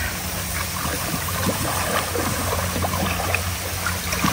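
Heavy rain falling on the river and the boat, a steady hiss scattered with small drop ticks, over a steady low hum.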